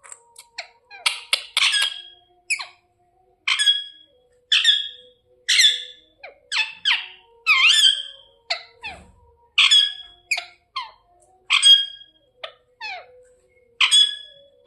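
Indian ringneck parrot giving a long series of short, harsh squawking calls, one or two a second.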